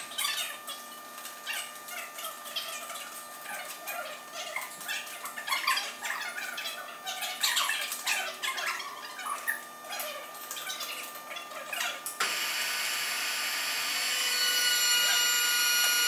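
Irregular metal clinks and knocks of hoist chains and hooks being handled against a locomotive truck's steel frame. About twelve seconds in, these give way suddenly to a steady machine whine with several held tones, which rises slightly near the end.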